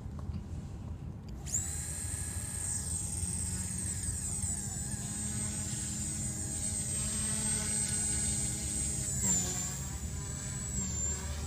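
Align T-Rex 150 micro electric RC helicopter spooling up: a high motor whine starts about a second and a half in and holds steady as the rotor spins up and the helicopter lifts off. The pitch dips briefly near the end.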